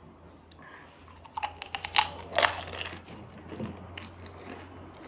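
Close-up crunching of someone biting and chewing crisp pani puri shells, a cluster of sharp cracks about a second and a half in and a few fainter ones after.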